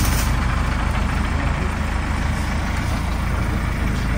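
Diesel minivan engine idling steadily, just serviced with fresh engine oil and a new air filter.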